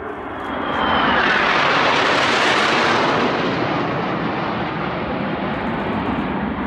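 Formation of Northrop F-5E Tiger II jets flying past. Their jet noise swells about a second in, is loudest for a couple of seconds, then eases off a little, with a faint high whine falling in pitch as it comes in.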